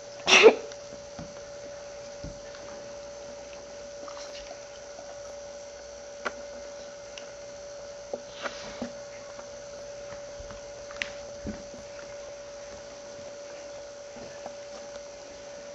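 A steady hum in a quiet room, with a few faint taps scattered through it. One short loud sound comes just after the start.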